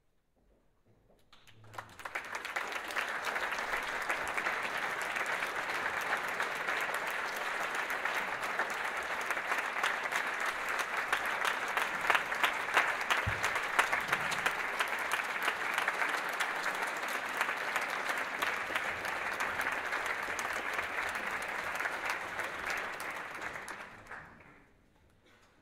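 Audience applauding: steady clapping that builds up about two seconds in, holds for about twenty seconds, and dies away near the end.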